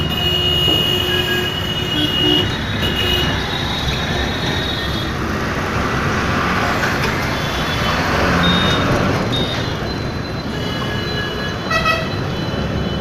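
Road traffic running steadily, with vehicle horns sounding now and then and a short horn toot near the end.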